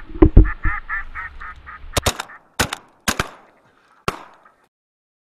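Live decoy duck, a hen mallard, quacking in a fast series of about eight quacks, with a loud low thump as it begins. A few sharp clicks follow between about two and four seconds in.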